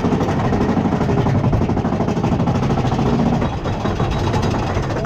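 Big Thunder Mountain Railroad mine-train roller coaster running along its track, heard from a seat in the moving car: a steady, loud rumble and rush of noise.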